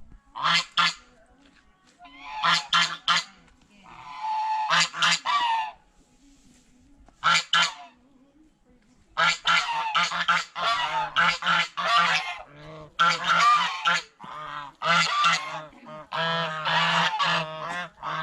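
Domestic white geese honking in short groups of repeated calls, with a lull partway through; from about nine seconds in, several geese honk almost without a break, their calls overlapping.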